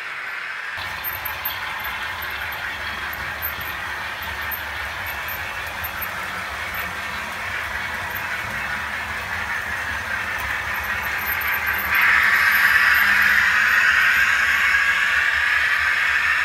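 OO gauge model trains running on the track: a steady whirr of small electric motors and metal wheels on rail. It gets clearly louder about three-quarters of the way through, as a train comes close.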